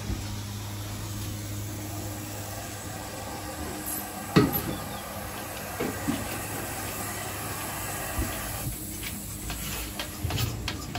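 A motor running with a steady low hum, broken by one sharp knock about four seconds in. The hum drops out near the end, leaving a scatter of clicks and knocks.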